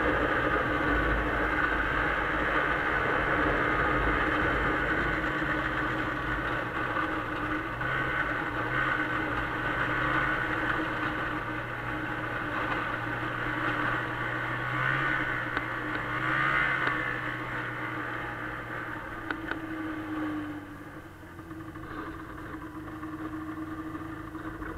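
1996 Arctic Cat Bearcat 340 snowmobile's two-stroke engine running steadily under way. It drops off and runs quieter near the end as the sled slows.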